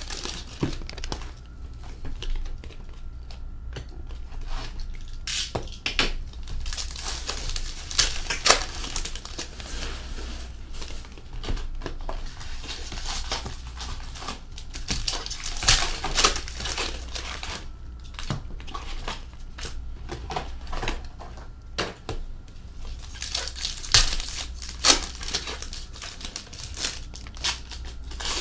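Hockey card packs being torn open and the cards handled: crinkling and tearing of the pack wrappers, with irregular clicks and taps as cards are flipped and laid down on a glass tabletop.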